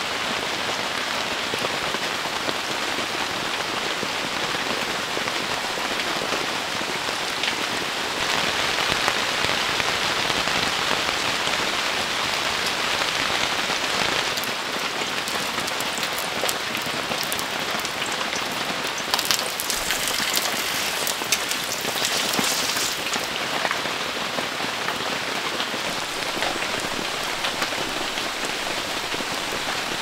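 Steady heavy rain pattering on the tent, with a few brief crackles and scrapes in the middle from batter frying on a griddle over a gas stove.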